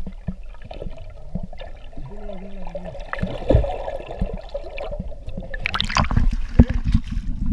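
Muffled underwater sound from a camera submerged beneath a sailboat's hull: low sloshing rumble and gurgling water. Near the end the camera breaks the surface and there is splashing.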